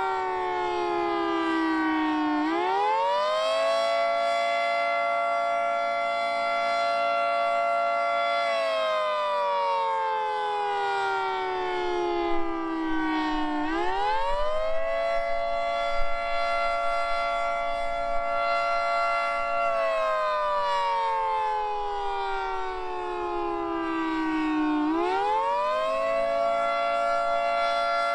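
Federal Signal 2T22 dual-tone outdoor warning siren sounding the Attack signal: a two-note chord that rises quickly, holds high for several seconds, then slowly falls, in wailing cycles about 11 seconds long. It rises three times.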